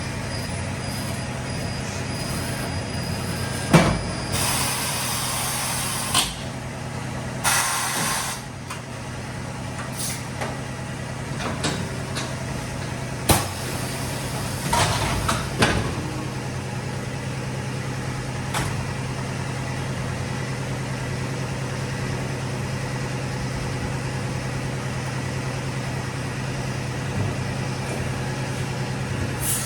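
Pneumatic tire changing machine at work: a steady low hum, broken in the first half by several short hisses of compressed air and a few sharp clunks.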